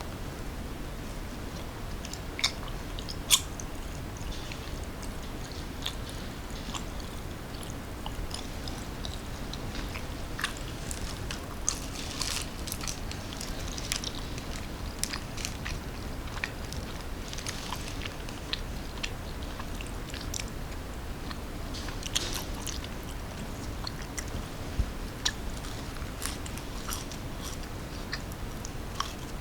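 A person biting and chewing food close to the microphone: scattered crisp crunches and mouth clicks over a steady low background hum, with the sharpest clicks about three seconds in and again near the end.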